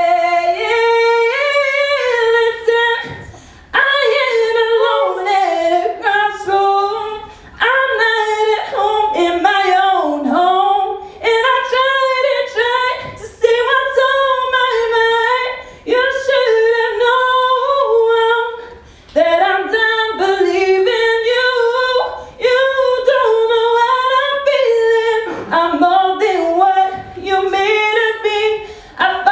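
A woman singing solo into a microphone, with long held notes and sliding runs. The singing breaks off for a short breath every few seconds.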